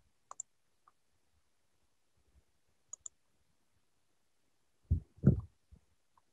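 Faint computer mouse and keyboard clicks in quick pairs, then a louder cluster of dull thumps about five seconds in.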